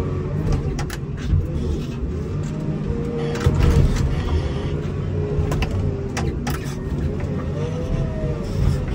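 Komatsu WA270 wheel loader's diesel engine running under load, heard from inside the cab, with a whine that rises and falls. Several sharp clanks and knocks come from the loader and its snow pusher as it works.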